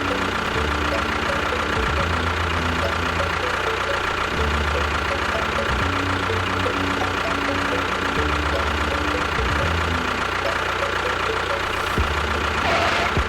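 A small motor running steadily with a constant whine.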